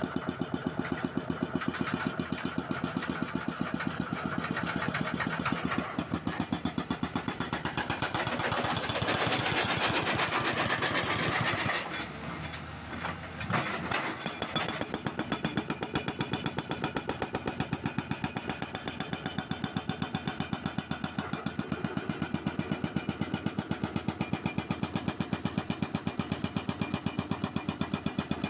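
Hydraulic breaker on a CAT 320C excavator hammering rapidly and steadily into K500 concrete, over the running diesel engine. The hammering breaks off briefly about twelve seconds in, then starts again.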